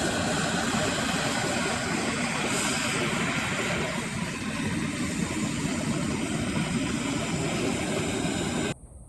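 X-Carve CNC machine's router running steadily as it carves wood, then cutting off abruptly near the end.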